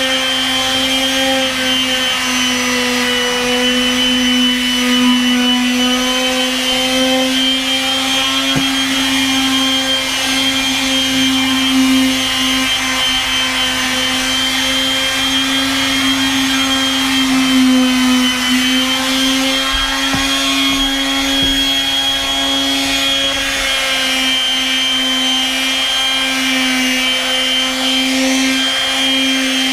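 Makita random orbit palm sander running steadily, its motor holding a constant whine with only slight wavers in pitch.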